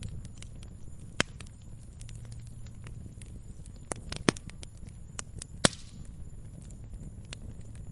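Bonfire crackling: irregular sharp pops and snaps over a low steady rumble, with the loudest pops about a second in, just past four seconds and near six seconds.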